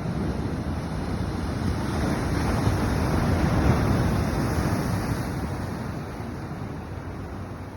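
Ocean surf: a wave rushing in, swelling to a peak about halfway through and then washing away, with wind buffeting the microphone.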